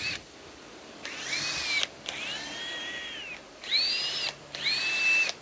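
Cordless impact driver run in four short trigger pulls, the motor whine rising in pitch and dropping off each time. The owner says it doesn't sound good.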